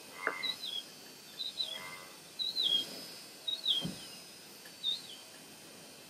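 A bird calling repeatedly: short high chirps that slip down in pitch, about one a second, with two lower, flatter notes in the first two seconds. A dull thump sounds about four seconds in.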